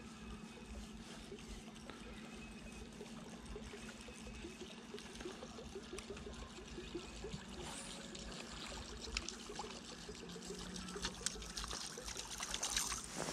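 Water trickling and lapping close by, with a few clicks and knocks that get louder near the end.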